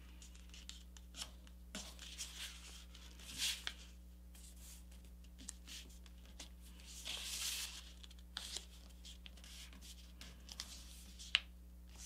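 A sheet of printer paper being folded and creased by hand: soft rustling swishes as fingers slide along the folds, with scattered light clicks and taps.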